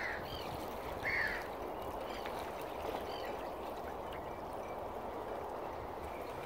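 Gulls calling, two short harsh cries in the first second or so and fainter ones after, over a steady wash of water and wind.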